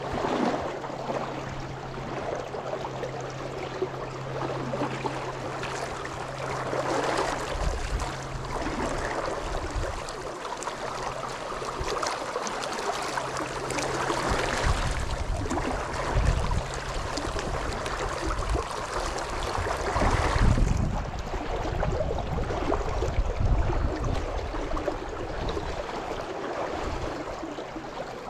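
Fast, shallow river water rushing and splashing around a wader standing in the current, with low gusts of wind noise on the microphone now and then.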